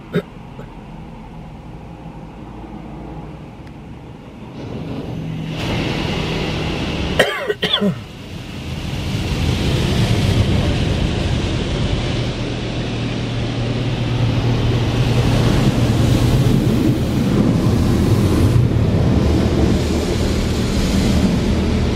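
Touchless Laserwash automatic car wash heard from inside the car: water spray and foam hitting the roof and glass, with the machine's steady low hum. It builds up about five seconds in and stays loud. A short, sharp sound about seven seconds in briefly stands out above it.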